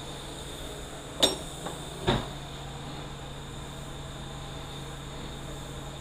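Two sharp clicks of small metal parts and tools being handled on a 4R70W transmission case, about a second apart, the second with a dull thud, over a steady low hum.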